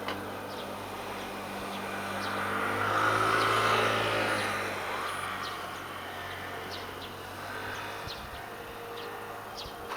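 JNR Class DE10 diesel-hydraulic locomotive passing close by with its train, its steady low engine hum swelling to a peak about three to four seconds in, then dropping in pitch and fading as it moves away.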